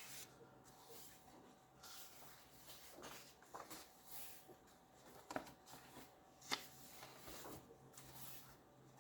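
Faint rustling and a few soft taps of a colouring book's paper pages being turned and handled.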